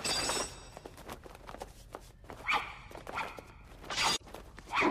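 Film fight-scene sound effects: a loud crash at the start, then a run of sharp knocks and hits with several short shouts or cries.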